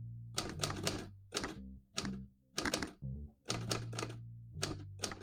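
Manual typewriter keys striking in quick runs of several clacks each, with short pauses between the runs.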